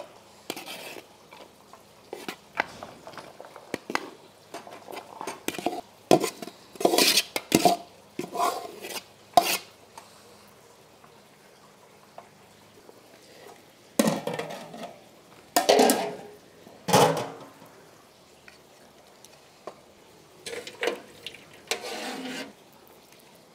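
Metal utensils clinking and scraping against pots and dishes in irregular clusters, some strikes ringing briefly, with quiet pauses in between.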